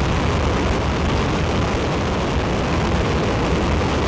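Ares I first-stage five-segment solid rocket motor firing in a horizontal static test, mid-burn: a steady, dense rumble, heaviest in the deep low end.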